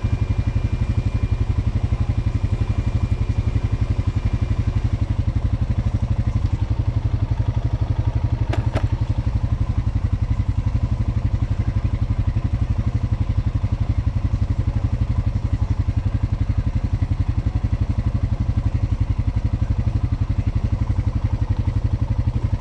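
A vehicle engine running steadily with a fast, even low pulse. A single sharp click sounds about nine seconds in.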